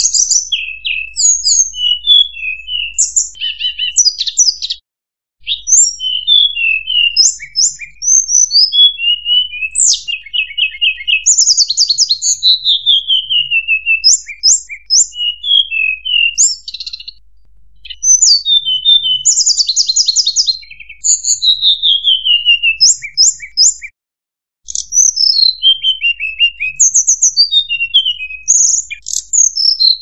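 Mangrove blue flycatcher song played as a bird-lure recording: a nearly continuous stream of varied high whistles, quick trills and falling slurred notes. It breaks off briefly about 5 seconds in and again about 24 seconds in.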